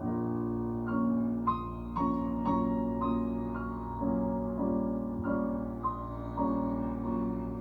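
Instrumental break in a slow jazz ballad: a piano plays sustained chords and single notes, a new note or chord about every half second.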